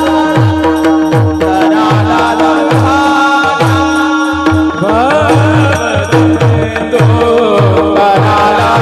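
Marathi varkari kirtan music: a devotional tune sung over a steady held drone, with rapid hand-drum strokes whose bass notes slide down in pitch.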